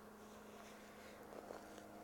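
Near silence with a steady faint hum, and a few faint crackles about one and a half seconds in as small dry cedar twigs are handled and broken.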